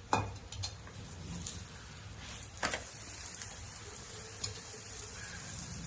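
Porotta frying in oil on a hot pan, sizzling steadily, with a few sharp clicks or knocks, the loudest nearly three seconds in.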